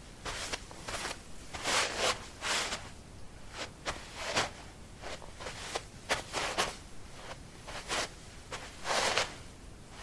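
Trekking shoes shuffling and scuffing on a carpet doormat: irregular brushing scrapes, a dozen or so, some short and some drawn out.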